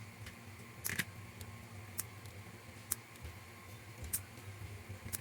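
Light, sharp clicks and taps of small scale-model parts being handled and fitted, about one a second, over a low steady hum.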